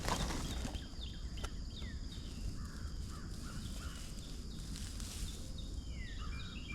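Wild birds chirping: many short, quick falling calls, coming thicker near the end, over a low steady rumble of wind on the microphone.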